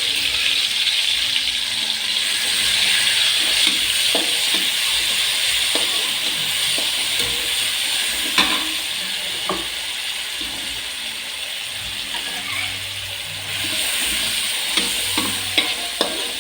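Food frying in hot oil in a pan, a steady sizzle, with a spatula now and then knocking and scraping against the pan as the stir-fry is stirred.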